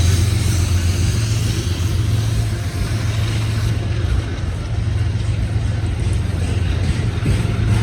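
Freight train passing close by: a loud, steady low rumble of the train rolling on the rails.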